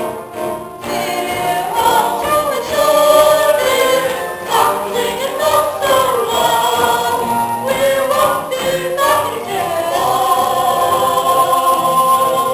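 A song from a stage musical: a chorus of voices singing together over instrumental accompaniment, holding a long note near the end.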